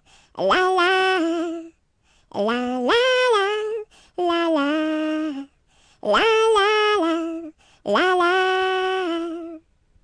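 A solo voice singing a birthday song unaccompanied, in five short sung phrases with brief silent pauses between them.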